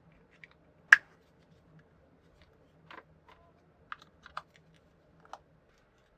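Light plastic clicks and taps from handling a Nendoroid figure and its packaging: one sharp click about a second in, then a scatter of softer clicks.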